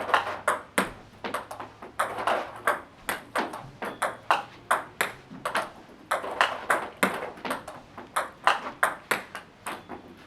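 Table tennis ball clicking in quick succession off bats and the table, about three to four strikes a second, as forehand loops are played against backspin.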